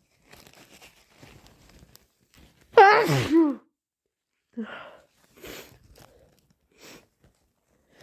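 A person with a cold sneezing once, strong and wet, about three seconds in, with short sniffs and breaths before and after it. The sneeze is brought on by chhinkni sneezing powder.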